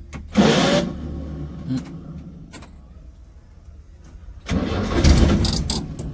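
Food van's engine being cranked to start, in two attempts: a short one about half a second in and a longer one of about a second and a half near the end. The van has a loose battery terminal lug that keeps cutting the power and stalling it.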